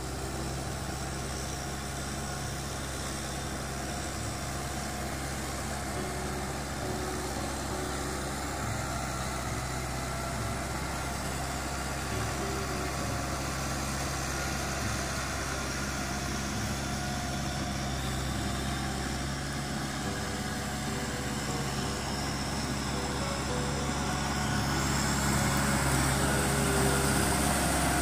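Kubota M6040 tractor's four-cylinder diesel engine running steadily under load as it pulls a rotary tiller through wet paddy mud. It grows louder near the end.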